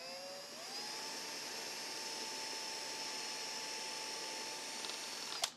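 Cordless drill spinning up and running at a steady whine for about five seconds, then stopping abruptly, as it drives a hex-head screw through a caster wheel's mounting plate with a 7/16 in. driver bit.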